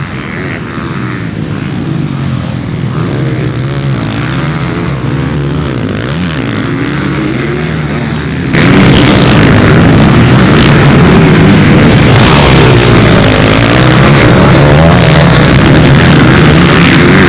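Motocross bike engines revving hard, rising and falling in pitch as the riders work the throttle through the track. About halfway through a much louder, closer bike takes over, revving as it throws up dirt.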